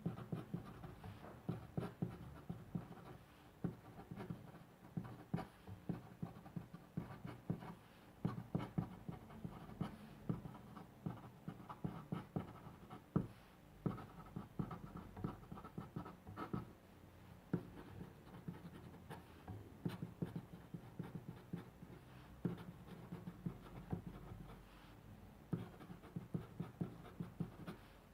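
Pen writing on paper: a continuous run of short, irregular scratchy strokes as characters are written out by hand.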